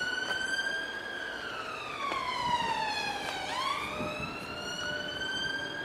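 Emergency vehicle siren wailing. Its pitch slides slowly down, sweeps back up about three and a half seconds in, then starts to fall again near the end.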